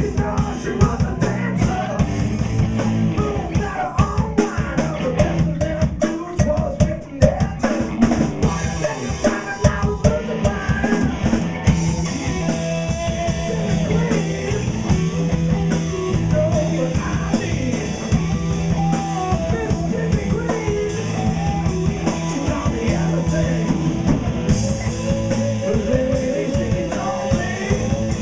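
Live rock band playing: distorted electric guitars, bass and a drum kit keeping a steady driving beat, with a man singing over it.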